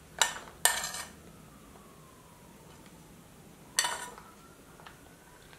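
Metal spoon clinking and scraping against a plate and bowls while black beans are spooned out: two short clinks about half a second apart at the start, and another a little before the four-second mark.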